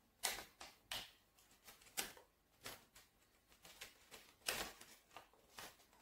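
Sheet of grid paper rustling and crackling as broom-straw sticks are worked through holes in a small paper kite sail: faint, in a string of short rustles, the loudest about four and a half seconds in.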